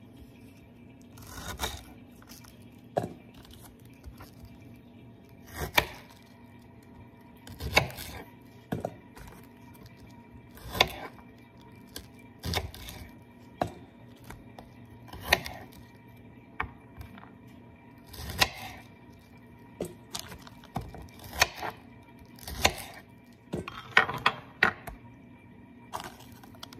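Kitchen knife slicing through Brussels sprouts and knocking on the cutting board: one crisp cut roughly every one to two seconds, with several quick cuts close together near the end.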